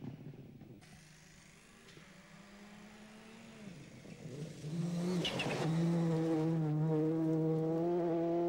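Ford Focus World Rally Car's turbocharged four-cylinder engine approaching at speed on a gravel stage. It is faint at first, then loud from about four seconds in, with a short burst of spraying gravel, and holds a steady high note as the car goes past.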